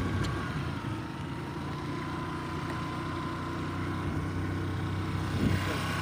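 Motor scooter's engine running steadily at cruising speed, heard from the pillion seat, with a motorcycle's engine close behind and wind rushing on the microphone.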